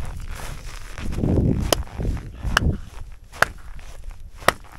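Split birch firewood being gathered by hand: four sharp wooden knocks as pieces strike one another, spread about a second apart, with rustling in snow between them.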